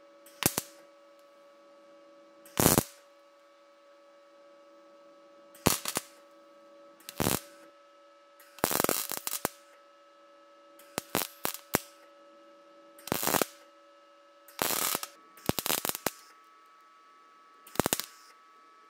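MIG welder arc crackling in about ten short bursts, each under a second, with pauses between: tack welds fixing a steel patch plate onto the rusted steel shell of an M16 Stahlhelm. A steady faint hum runs underneath.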